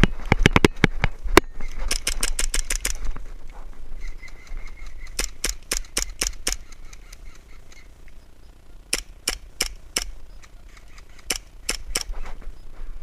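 Airsoft guns firing in several rapid bursts of sharp snapping shots, each burst about a second long, with pauses between them.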